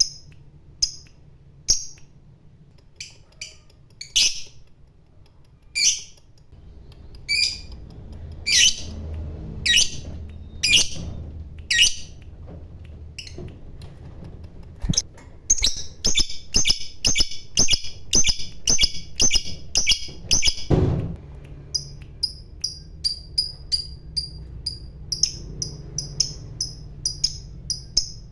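Lovebird calling: separate sharp chirps every second or two, then from about halfway a fast run of repeated chirps, about three a second, the chattering 'ngekek' song. A single thump breaks it about three-quarters through, and the fast chirping picks up again.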